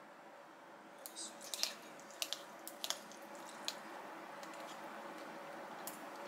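Quiet eating and food-handling sounds: soft squishes with a handful of sharp little clicks, bunched between about one and four seconds in.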